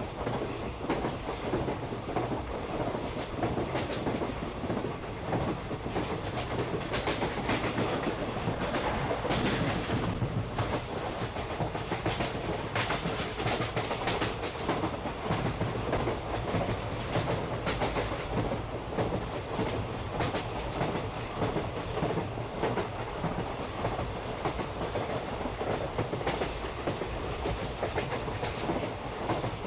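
Park toy train running along its track, wheels clattering continuously over the rail joints above a steady running rumble.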